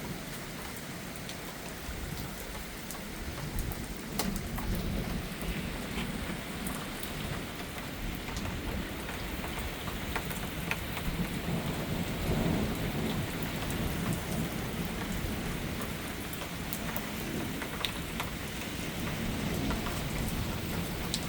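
Steady rain falling during a thunderstorm, with scattered sharp drop ticks close by. A low rumble underneath swells about twelve seconds in.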